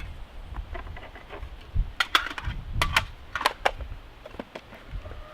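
Small pieces of camping gear being handled and set down: a scattered series of light clicks and taps, clustered from about two seconds in.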